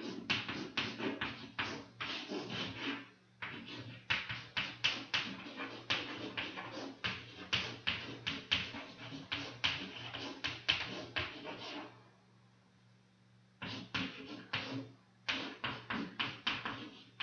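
Chalk writing on a chalkboard: quick taps and scrapes, several strokes a second, with short pauses about three seconds in and again around twelve seconds in. A low steady hum runs underneath.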